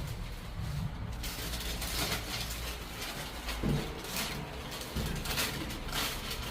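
Hyundai passenger elevator car travelling between floors: a low steady hum and rumble, with a few faint knocks.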